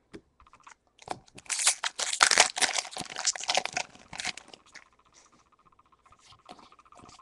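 Foil wrapper of a Pokémon trading-card booster pack being torn open and crinkled by hand: a dense run of crackling lasting about three seconds, starting about a second in. After it come a few soft clicks as the cards are handled.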